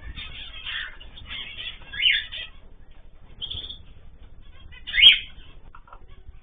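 Pet cage birds chirping together, with two louder, sweeping calls, one about two seconds in and one about five seconds in.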